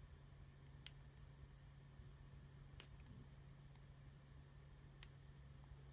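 Near silence over a steady low hum, broken by three small sharp clicks: one about a second in, one near the middle and one near the end. The clicks come from tweezers and fingers working at a plastic chainsaw fuel tank cap, pushing a rubber breather valve into a drilled hole.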